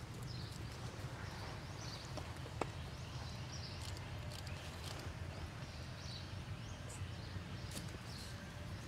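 Outdoor ambience: a steady low hum under many short, high chirps, scattered irregularly, with one sharp click about two and a half seconds in.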